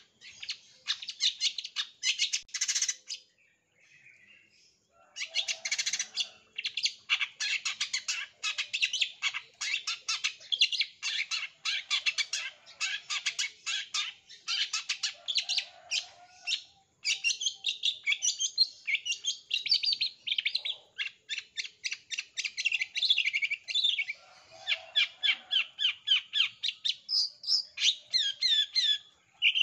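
Long-tailed shrike (cendet) singing a fast chattering song of rapid, sharp repeated notes, with a short break a few seconds in.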